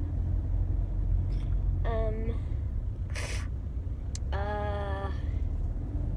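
Steady low rumble of road and engine noise inside a car's cabin. Over it a child's voice makes two short hummed "hmm" sounds, about two seconds in and a longer one at about four and a half seconds, with a brief breathy hiss between them.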